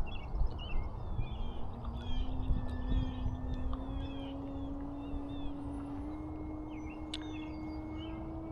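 Electric motor and propeller of a Carbon-Z Cessna 150T RC plane on a 6S battery, a steady drone whose pitch climbs in small steps. Birds chirp throughout, over a low rumble of wind on the microphone.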